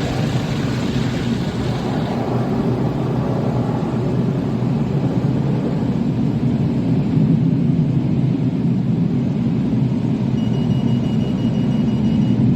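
Automatic car wash machine running, heard from inside the car's cabin: a steady low rumble of the wash with a hiss of spray early on. Rapid high-pitched beeping for about two seconds near the end.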